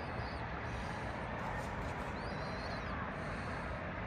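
Steady city ambience, an even low background hum, with a faint high bird call twice.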